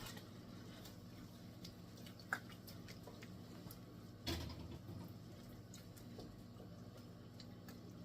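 Quiet kitchen handling as ricotta cheese is spooned out of its tub: a few light clicks and a soft knock about four seconds in, over a low steady hum.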